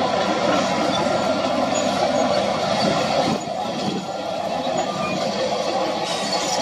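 SDLG wheel loader's diesel engine working under load as the bucket pushes into rock and gravel fill, with a steady mechanical grinding rumble; it eases off a little about three seconds in.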